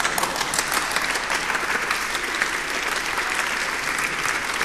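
Large audience clapping, a dense and steady applause.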